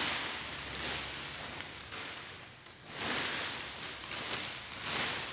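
Clear plastic bag rustling and crinkling as a racing seat is pulled out of it, coming in swells with a short lull about two seconds in.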